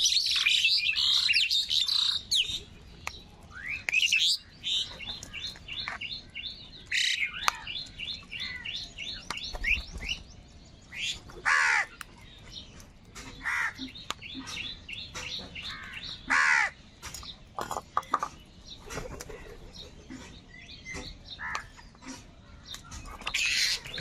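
House crows cawing, many harsh calls from several birds, sometimes overlapping. Starting about five seconds in, a rapid run of short, high chirps lasts for several seconds.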